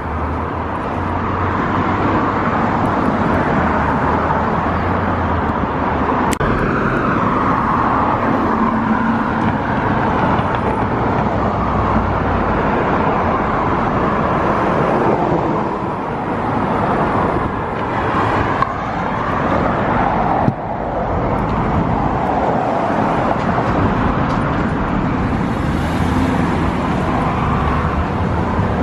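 Road traffic noise: a steady wash of cars passing, swelling and easing, with a few brief clicks.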